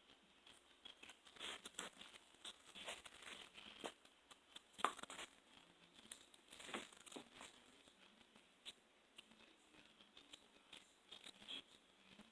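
Slime being stretched and kneaded by hand, giving faint, irregular sticky crackling and clicking, with a couple of louder pops about five and seven seconds in.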